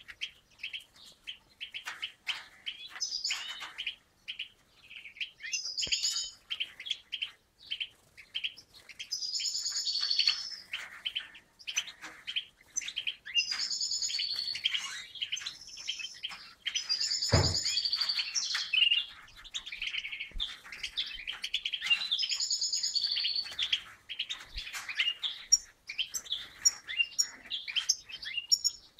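European goldfinches twittering and singing: short phrases of fast, trilled chirps repeated every second or two, with a single low thump about two-thirds of the way through.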